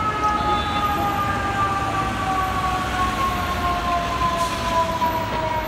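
Fire engine siren wailing, its tone falling slowly and steadily in pitch, over the steady noise of traffic.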